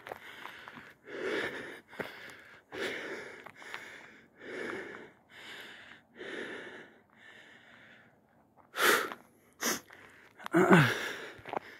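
Heavy breathing of a hiker walking uphill, with a loud exhale about every one and a half to two seconds. The breaths ease off about two-thirds of the way through, then come several sharper, louder breath noises near the end, the last with a short falling voiced sound.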